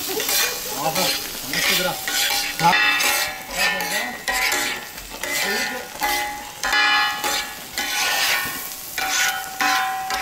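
A long metal spatula scraping and stirring food in a large pan of sizzling oil, in repeated strokes a little more than once a second.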